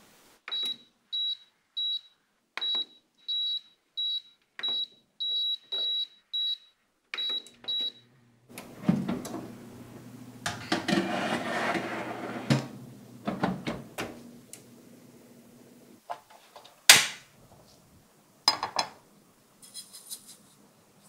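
An air fryer oven's control panel beeps about a dozen times, one even high tone per button press. Then its fan starts with a low steady hum while the wire basket of pumpkin clatters onto the rack. A sharp knock near the end, the loudest sound, is the door shutting, and sugar then pours briefly into a pan.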